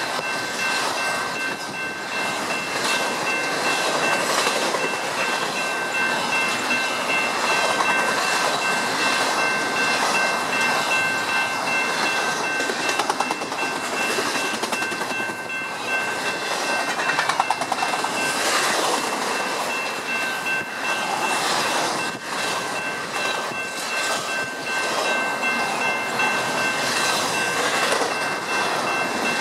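Double-stack intermodal container freight train rolling past: a steady rumble and rush of steel wheels on rail with clicks over the rail joints, under a thin steady high-pitched whine.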